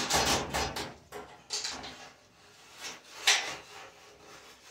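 Hinged metal cooktop of an electric range being lowered back down and handled: a rush of handling noise at the start, a shorter one after a second and a half, then a sharp knock a little over three seconds in as it comes down.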